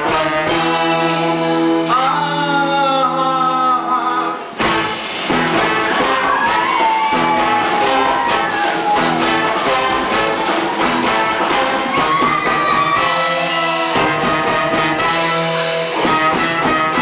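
A band playing live: a woman sings over her piano accordion, backed by horns, electric guitar and drums. The music drops out briefly about four and a half seconds in.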